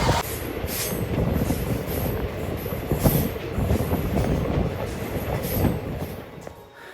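Train running on the rails: a dense low rumble with irregular sharp clacks of the wheels, fading down near the end.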